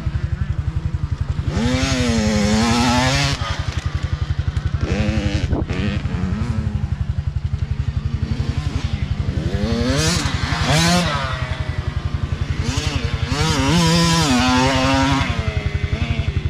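Youth dirt bikes revving past one after another, their engines climbing and dropping in pitch as the riders accelerate and shift. The loudest passes come about two seconds in, around ten seconds and around fourteen seconds.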